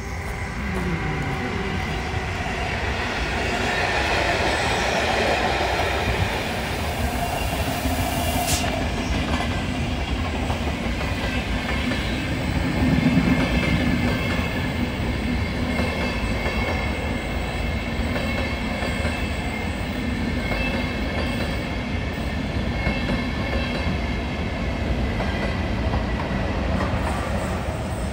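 Czech Railways Railjet electric passenger train passing close by, its wheels running and clacking over the rails under a steady high whine. It is loudest about halfway through, with one sharp click about a third of the way in.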